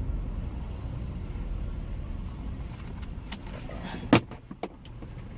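Car running at low speed, heard from inside the cabin as a steady low rumble. A sharp knock about four seconds in, with a few lighter clicks around it.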